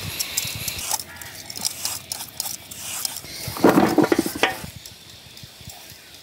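Hand peelers scraping the skin off bottle gourds in short strokes, with a louder rattle lasting about a second a little past halfway.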